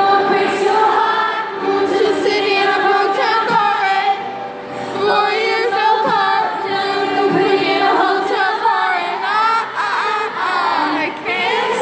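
Live arena concert sound: a woman singing a pop song to her acoustic guitar, with the audience singing along in a mass of voices.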